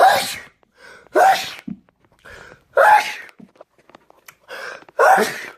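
A person sneezing four times in a row, each loud sneeze fading quickly. Before most of them comes a quieter, shorter intake of breath.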